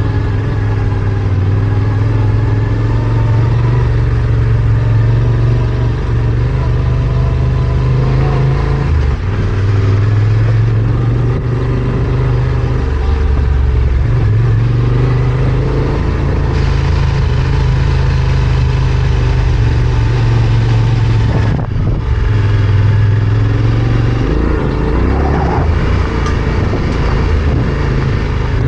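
Yamaha Ténéré 700 parallel-twin motorcycle engine running under way, its pitch rising and falling with the throttle, with a steady hiss over it. The sound dips briefly about three-quarters of the way through as the throttle is closed.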